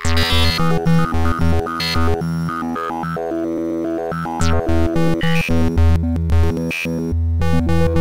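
Electronic background music with synthesizer and a pulsing beat, cutting out for a moment near the end.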